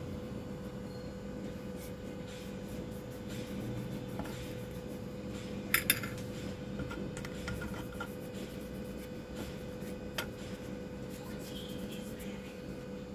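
Light rubbing with small clicks and clinks as old thermal paste is wiped off a power amplifier IC and its aluminium heatsink, with a pair of sharper clicks about six seconds in and another near ten seconds. A steady faint hum sits underneath.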